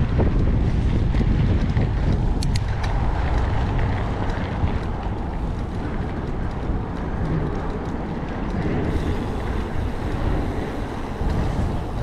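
Wind noise on the camera microphone as a 2018 Trek Fuel EX 7 mountain bike rolls along a grass and dirt trail, with a few light clicks about two and a half seconds in.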